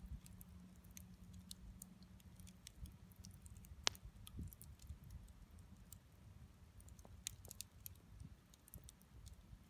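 Wood bonfire crackling: scattered small pops and snaps, one sharp louder crack about four seconds in, over a low rumble.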